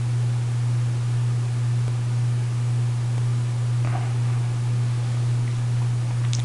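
Loud, steady low electrical hum that does not change, with a faint tick about four seconds in.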